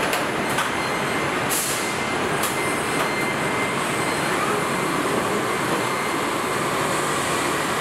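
Car-body assembly line with welding robots at work: steady industrial machinery noise, broken in the first few seconds by several short hisses and clicks.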